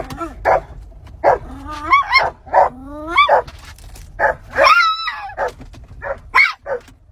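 A dog vocalizing at length in a string of short, pitched calls, several of them sliding upward, with one longer drawn-out call about halfway through.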